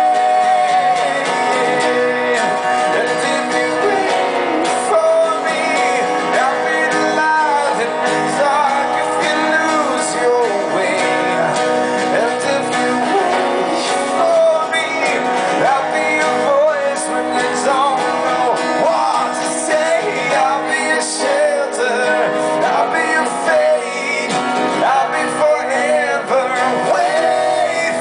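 Live acoustic song: a man singing over his own strummed acoustic guitar.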